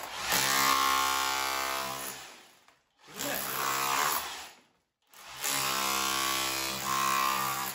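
Cordless SDS rotary hammer breaking out plaster and brick at a socket position. It runs in three bursts of rapid hammering, the first and last about two and a half seconds long and the middle one shorter, with brief pauses between.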